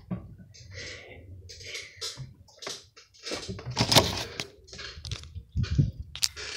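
Handling noise from the recording phone being picked up and moved: irregular rustling, scraping and clicking, with a louder knock about four seconds in.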